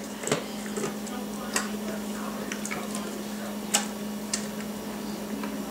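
Dry dog kibble clicking against a stainless steel bowl as a small hand picks through it: a few sharp, scattered clicks over a steady low hum.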